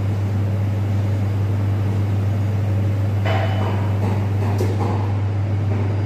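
Faema E98 UP espresso machine's pump running with a steady low hum while a double shot is pulled during volumetric calibration.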